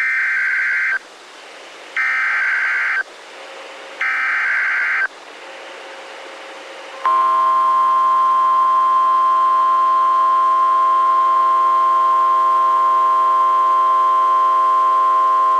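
Three EAS SAME header bursts, each a harsh warbling digital screech about a second long and a second apart, with faint radio hiss in the gaps. After a short pause comes the NOAA Weather Radio single-tone warning alarm, a steady loud 1050 Hz tone that holds for about nine seconds.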